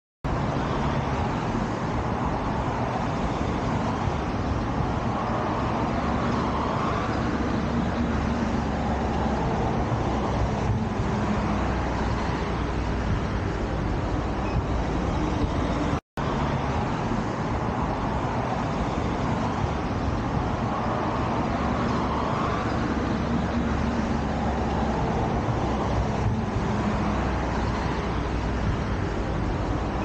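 Steady hum of distant road traffic, swelling slowly now and then as vehicles pass. The sound cuts out briefly about halfway through.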